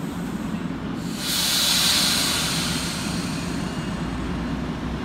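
NJ Transit Comet passenger cars rolling past with a low rumble. About a second in comes a sudden loud hiss of released air from the train, which fades over the next couple of seconds.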